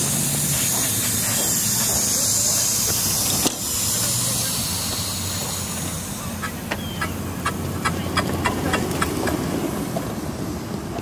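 Ride-on live-steam model of a New York Central 2800-class locomotive hissing steam loudly for about three and a half seconds, cut off by a sharp click. From about six seconds in comes a run of light clicks, two to three a second.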